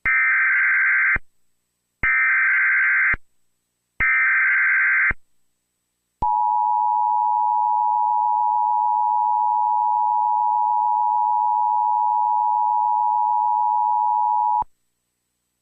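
Emergency alert data header: three buzzing bursts of digital tones, each about a second long with a second's gap between them, then a steady alert tone held for about eight seconds before it cuts off. Together they announce a tornado warning.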